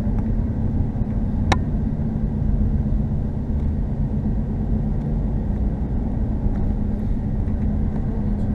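Car driving on a country road: steady engine and road rumble with a low hum, heard from inside the car. A single sharp click comes about one and a half seconds in.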